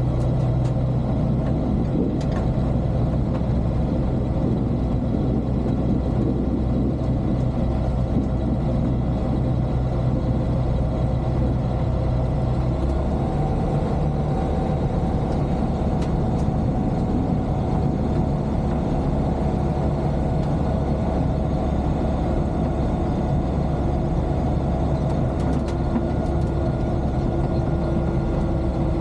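Aeroprakt A22LS light aircraft's Rotax 912 flat-four engine and propeller running steadily, a continuous drone whose pitch pattern shifts a little under halfway through as the power setting changes.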